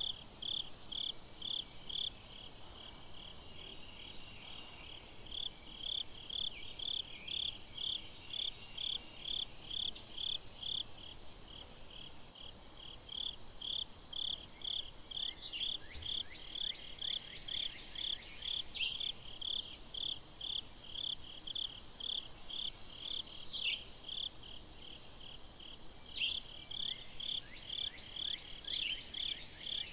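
Steady, evenly spaced high chirping, about two or three chirps a second, typical of a cricket singing. A few fainter sliding calls come in about halfway through and again near the end.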